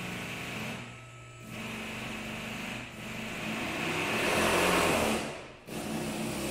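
Small two-stroke hedge trimmer engine running at a steady fast speed. It drops away sharply three times and is loudest a little past the middle.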